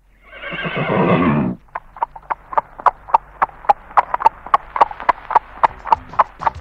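A mule whinnies once, then its hooves clip-clop at a steady walk, about three beats a second, as the cart moves off; this is a radio-drama sound effect.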